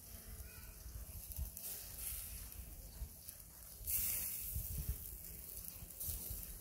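Small squid and octopus sizzling on a wire grill over charcoal as oil is brushed onto them with a green-onion stalk. The sizzle swells into a louder hiss about four seconds in.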